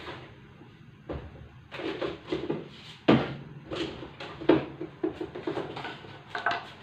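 Kitchen utensils clattering off-camera: a run of about ten knocks and clinks, the loudest about three seconds in, as a spoon and container are handled to fetch salt.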